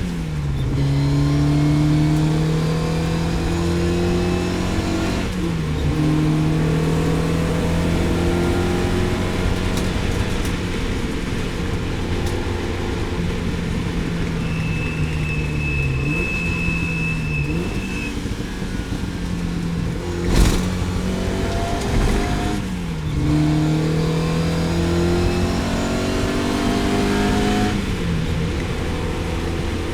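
Lotus Elan GTS engine pulling hard on track, its pitch climbing through each gear and dropping sharply at each upshift, about every five or six seconds. A single sharp knock sounds about twenty seconds in.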